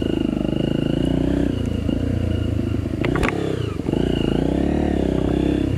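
Off-road motorcycle engine running as it is ridden over rough ground, its revs rising and falling with the throttle, with a sharp knock about three seconds in.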